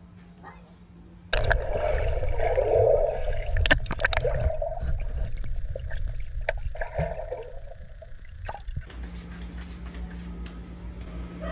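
Muffled, gurgling water sound of a pool recorded underwater, as a masked swimmer moves through it. It starts suddenly about a second in with many small clicks and bubbles, and gives way near the end to quieter steady background noise.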